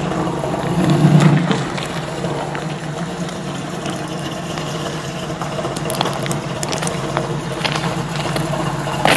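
Oldsmobile Cutlass's bored Chevy 355 small-block V8 running, louder for a moment about a second in as the car rolls, then idling steadily after a burnout.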